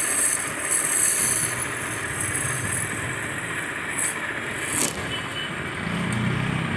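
A woodworking power tool running steadily, with a sharp click about five seconds in.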